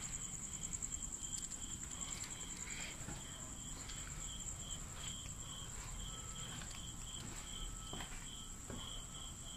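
Night insects chirping: one steady high-pitched trill, with a second, lower chirp pulsing about twice a second.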